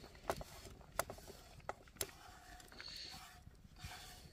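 Faint handling of cooking utensils: four sharp clicks or knocks in the first two seconds, then slow scraping strokes about once a second.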